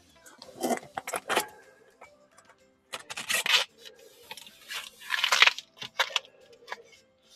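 Rustling and handling noises in three bursts, with scattered clicks, over faint background music.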